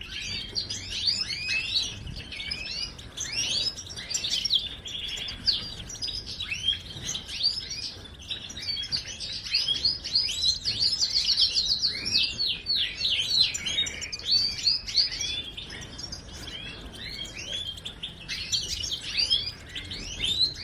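European goldfinch singing: a fast, continuous run of bright twittering chirps and trills with hardly a pause.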